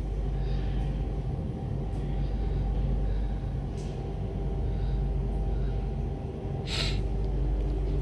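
Steady low mechanical drone of a running machine, with a short hiss near the end.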